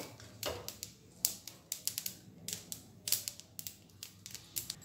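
Sesame seeds crackling as they dry-roast on low heat in a frying pan: irregular sharp pops, a few a second. The crackle is the sign that the sesame is toasting.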